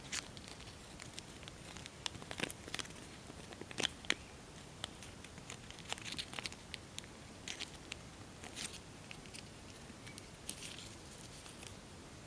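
Tissue foil crinkling and crackling faintly as fingers pinch and fold it: scattered soft clicks and short rustles, a few sharper ones about two and a half and four seconds in.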